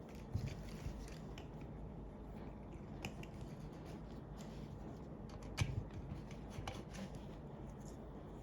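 Faint scattered clicks and taps of hands handling jumper wires and components on a breadboard, over a steady low background hum.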